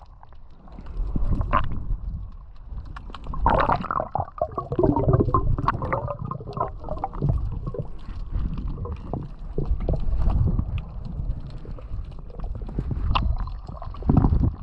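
Muffled underwater sound through an action camera's waterproof housing: a low rumble of moving water with gurgling and bubbly bursts that come and go in uneven surges.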